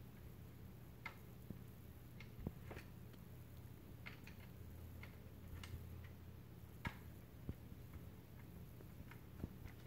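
Faint, irregular metallic clicks and light knocks of SIG Sauer rifle parts being handled and fitted during reassembly, roughly one a second, over a low steady hum.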